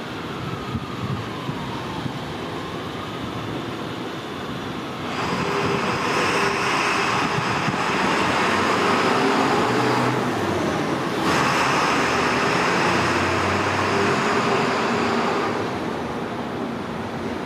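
New York subway train approaching along an elevated structure, rolling slowly and rumbling. From about five seconds in, a louder steady rush with a few held tones sets in, dips briefly near the ten-second mark, and fades around fifteen seconds.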